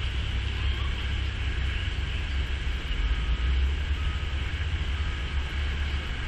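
Wind buffeting the microphone: an uneven low rumble over a steady higher hiss.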